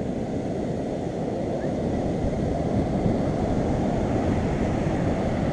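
Steady, muffled low rumble of wind on the microphone and surf, with no clear events.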